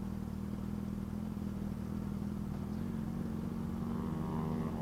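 Honda CG 150 Fan ESi's single-cylinder four-stroke engine running as the motorcycle is ridden, its pitch rising a little near the end as it speeds up.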